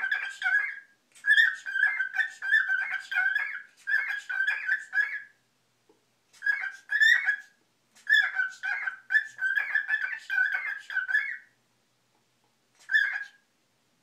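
Cockatiel warbling and chattering in quick runs of short whistled notes. The notes come in several phrases, one to four seconds long, with brief pauses between, and a short burst near the end.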